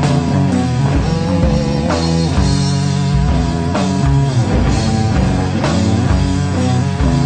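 Rock music with distorted electric guitar and a drum kit, at a steady loud level.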